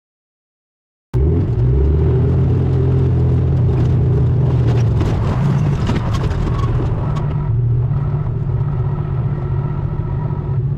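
A vehicle engine running steadily at an even pitch, cutting in abruptly about a second in.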